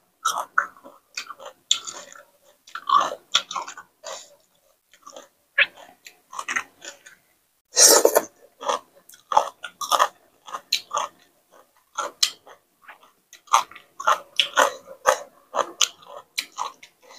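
Close-up wet chewing and biting of a spicy papaya salad: irregular short smacks and crunches with brief pauses, and one louder burst about eight seconds in.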